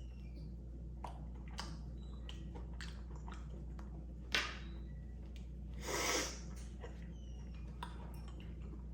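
Close-up eating sounds: chewing and soft wet mouth clicks and smacks from a Blizzard packed with cookie dough and Reese's Pieces. There is one sharper click about four seconds in and a short hissing breath or slurp about six seconds in.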